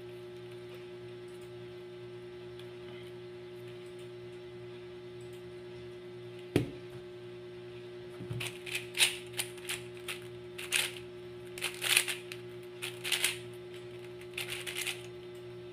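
Plastic MGC 4x4 speed cube being turned fast, its layers clicking in rapid flurries that start a little past halfway. A single sharp knock comes shortly before the turning begins.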